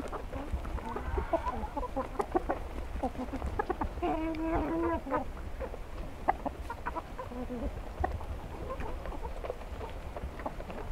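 Chickens clucking in a scatter of short calls, with one longer, drawn-out call about four seconds in.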